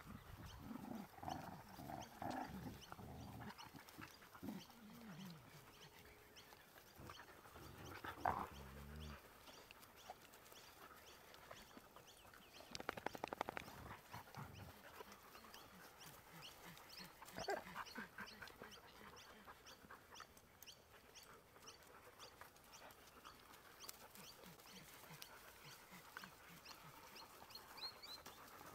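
Faint sounds of several dogs at play-fight: low growls and grumbles, with panting.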